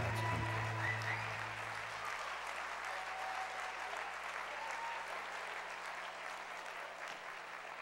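Audience applauding at the end of a dance performance, the applause slowly dying down. The last held notes of the music fade out about two seconds in.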